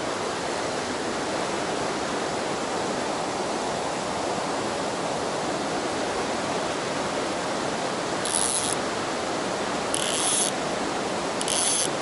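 Mountain stream rushing steadily over rocks. Near the end a fly reel's click-and-pawl ratchet buzzes briefly three times, about a second and a half apart, as line is pulled off the reel.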